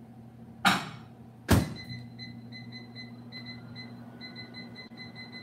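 Microwave oven door shut with two knocks, the second louder. The oven then starts running with a low steady hum while its keypad beeps about three times a second as the seven-minute cooking time is entered.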